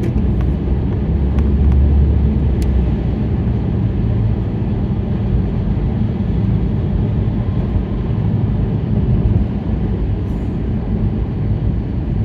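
Steady low road rumble of a car driving at highway speed on wet pavement in the rain, heard inside the cabin, swelling slightly in the first few seconds.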